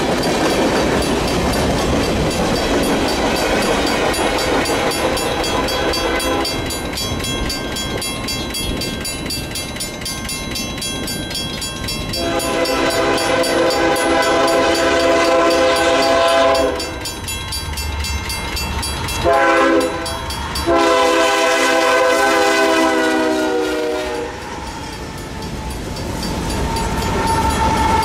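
Freight train rolling past close by, tank cars rumbling and clacking over the rails. Then an approaching BNSF freight locomotive sounds its multi-chime air horn: a long blast, a short one, and another long blast, before the cars of the oncoming train start rolling past.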